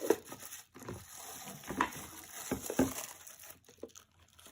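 Plastic packaging rustling and crinkling, with a few light knocks and clicks of plastic against plastic, as a resealed bag of power plugs is handled and put into a plastic food container.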